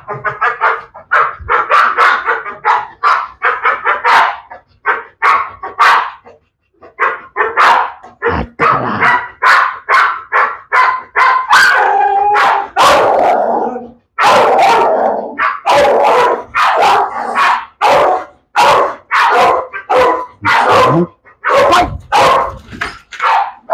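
Pit bull barking over and over, about two barks a second with a few short breaks. It is barking while held back before a jump for a hanging bite toy.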